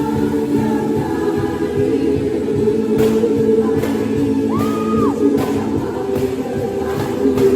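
Gospel praise song with group singing and accompaniment, with sharp tambourine jingle hits standing out a few times.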